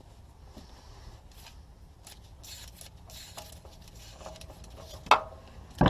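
Light metallic clicks, rattles and scrapes of tools and parts being handled during an oil change, with two sharp knocks near the end.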